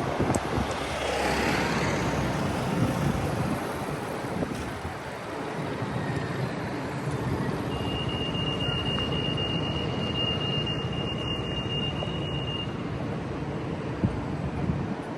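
Urban traffic noise, with a vehicle passing about a second in. A steady high-pitched tone sounds for about five seconds in the middle.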